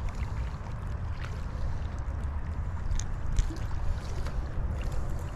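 Wind buffeting the microphone as a steady low rumble, with a few small clicks about three seconds in as the treble hooks of a crankbait are worked out of a white bass's mouth.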